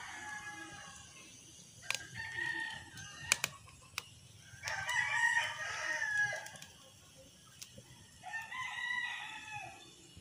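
Roosters crowing repeatedly, about four crows of one to two seconds each, the longest near the middle. A few sharp cracks fall between the crows, one of them the loudest sound.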